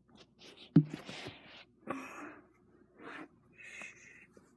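Handling noise from a phone camera being moved and set down: a sharp knock about three-quarters of a second in, then several short rustles of a fabric blanket.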